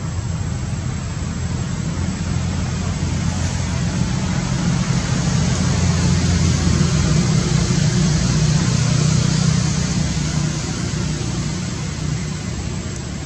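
Low, steady rumble of a motor vehicle with a hiss above it, growing louder about halfway through and fading toward the end.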